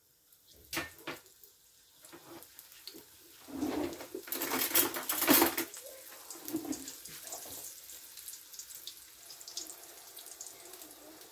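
Dough pastries frying in hot oil in a pan: two light clicks about a second in, then a loud sizzle that swells for about two seconds as another piece goes into the oil and settles to a steady crackling sizzle.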